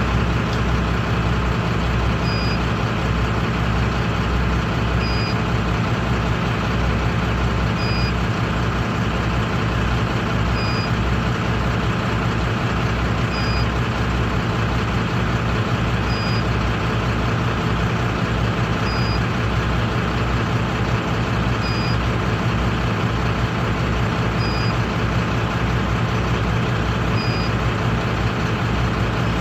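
Lindner tractor engine running steadily, with a short high beep repeating about every three seconds.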